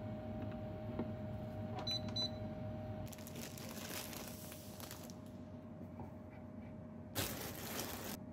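Water bubbling at the boil in a saucepan of eggs, with two short electronic beeps from the induction hob's controls about two seconds in. Then a plastic bread bag crinkling as sliced bread is taken out, with a louder rustle near the end.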